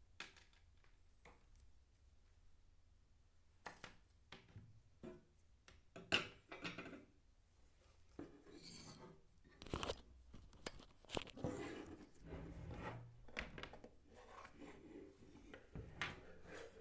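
Irregular clicks, knocks and crinkling rustles of packaging being handled and torn open during an unboxing, with a few longer rustling stretches in the middle.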